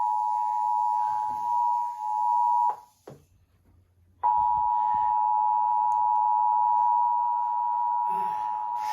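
Emergency Alert System attention signal for a child-abduction (Amber) alert: a steady two-tone beep just under 1 kHz. It cuts out just under three seconds in, leaving about a second and a half of near silence, then starts again.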